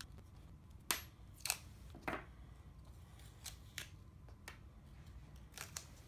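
Faint, scattered light clicks and taps of small plastic parts being handled and set down on a tabletop, as taped plastic sheet pieces are pulled off a plastic pipe clip.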